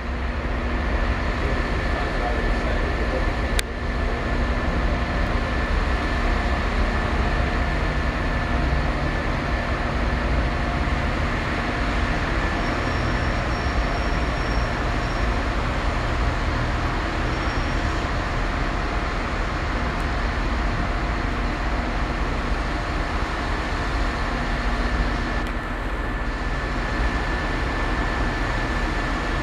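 Class 37 diesel locomotive's English Electric engine running steadily, with a steady high tone held over the engine noise.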